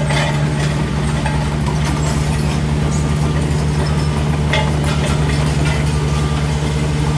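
Road roller's diesel engine running steadily, holding an even, unchanging pitch.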